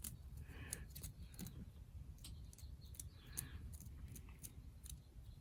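Faint, irregular light clicks and soft scraping from a small metal mechanism being handled.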